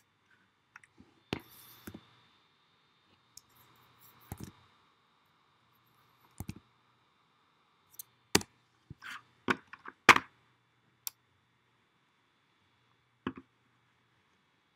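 Computer mouse clicks and keyboard key presses, sharp and irregularly spaced, with the loudest cluster about eight to ten seconds in.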